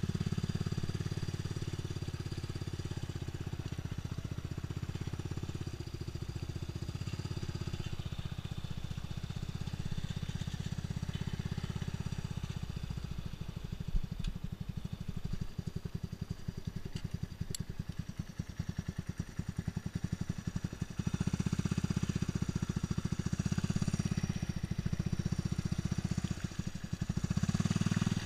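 Honda ATV engine running as the quad drives through standing water, easing off for a stretch in the middle and picking up again with more throttle about two-thirds of the way through. Water splashes up around the front wheel near the end.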